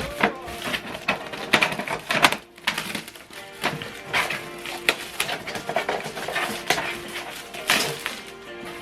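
Plastic wrapping and packing material being handled and pulled off a new inkjet printer: irregular crinkling and light knocks. Background music plays underneath.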